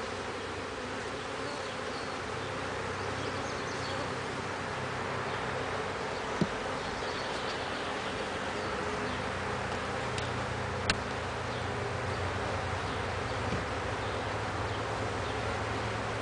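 Honeybees buzzing steadily in a dense cloud around an open hive during an inspection, a continuous low hum. Two short sharp clicks sound partway through.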